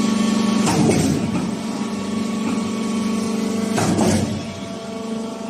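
Concrete mixer pump's electric-driven machinery running with a steady hum. Two short rattling, noisy bursts come, one about a second in and one near four seconds.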